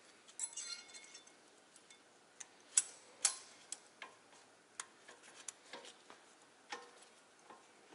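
New metal brake pad clips clicking and snapping into the caliper mounting bracket, with light metallic ticks and a short rattle as they are handled. The two sharpest clicks come about three seconds in.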